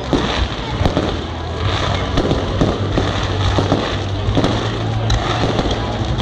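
Fireworks display: a run of sharp bangs from bursting shells, about two a second, with crackle between them.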